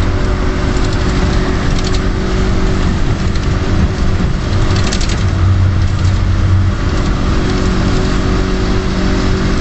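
Strong wind buffeting the microphone: loud, continuous rumbling noise, with a steady low hum underneath.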